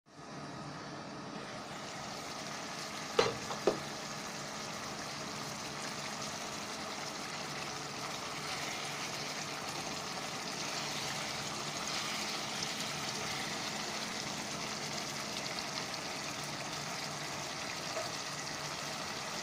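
Chicken pieces simmering in spiced gravy in a non-stick pan, a steady sizzle and bubbling, with a spatula stirring through them. Two sharp knocks come about three seconds in.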